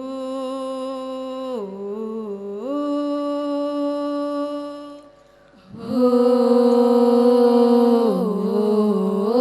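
Unaccompanied singing in an Al-Banjari sholawat performance: two long held notes, each sliding down to a lower note and back up. The second phrase is louder and starts after a short breath about five seconds in.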